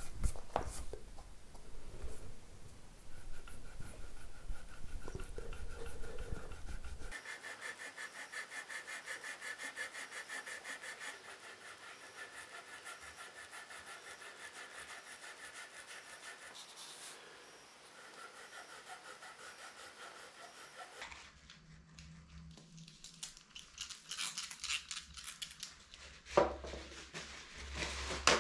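Fret eraser (abrasive rubber block) rubbed back and forth over corroded metal frets in quick, even strokes, polishing off the corrosion. A single sharp knock near the end.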